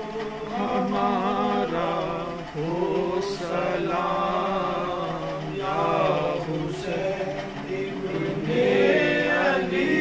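Male voices chanting a Salaam, the Urdu devotional salutation to Imam Hussain, in slow melodic phrases.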